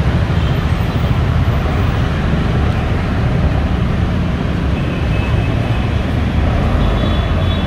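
Intercity coach's diesel engine running as the bus is dispatched, a loud, steady low rumble.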